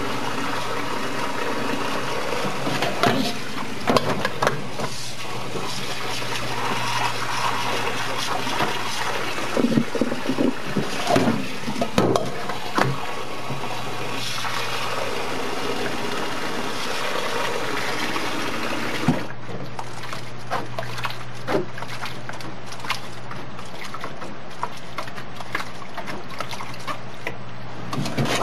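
Tap water running into a metal colander of boiled somen noodles as hands rub and rinse them, with scattered small knocks and splashes from the handling. The rinse washes the surface starch off the noodles. The high hiss of the stream drops away about two-thirds of the way through.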